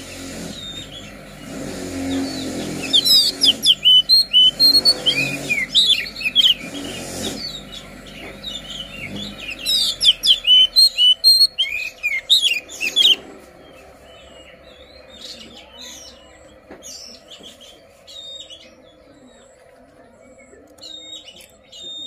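Oriental magpie-robin of the white-bellied kacer poci form singing vigorously in fast, loud runs of sharp chirps and whistles, then dropping to sparse, fainter calls about two-thirds of the way through. A low rumble sits under the first half.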